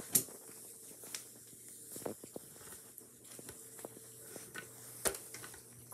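Handling noise from a phone camera being picked up and carried to a new spot: scattered soft clicks, knocks and rubs, with a faint steady hum underneath.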